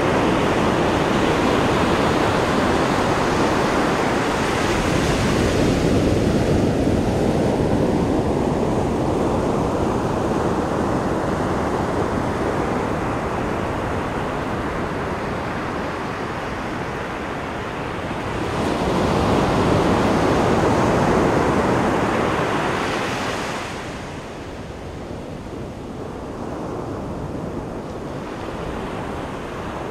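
Pacific Ocean surf: a steady rushing wash of breaking waves that eases off through the middle, swells again with a bigger wave about two-thirds of the way in, then drops back quieter.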